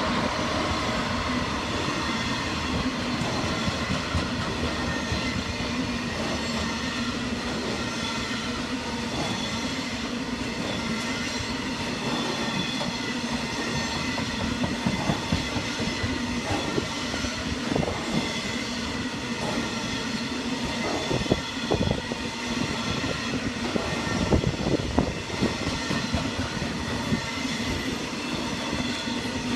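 Class 66 diesel freight locomotive running through the station at speed with its train of wagons, a steady engine and rolling noise. From about halfway through, wagon wheels clatter rhythmically over the rail joints.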